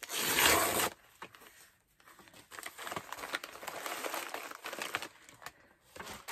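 Plastic bag and paper packaging crinkling as they are handled. A loud rustle in the first second, then a pause, then a few seconds of lighter crinkling.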